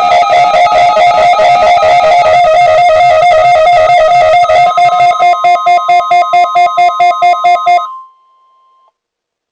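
Loud electronic music with a fast, bright melody: rapidly alternating notes, then from about halfway a run of evenly pulsed notes at about five a second. It cuts off about eight seconds in, and a faint held tone lingers for about a second before silence.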